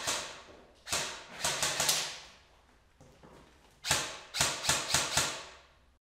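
Airsoft rifle firing without the custom sound device, its own plain report: sharp clicks that ring out in a large echoing room, a couple of single shots, then quick strings of about four and five shots.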